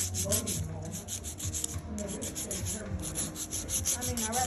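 Hand nail file scraping back and forth across a long acrylic nail in quick, even strokes, about four to five a second.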